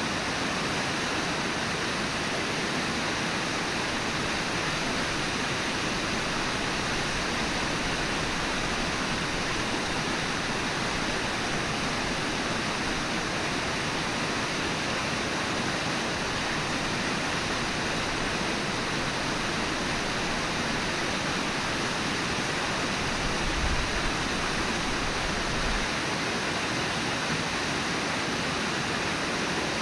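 Steady rush of flowing river water, with a couple of faint low bumps about three-quarters of the way through.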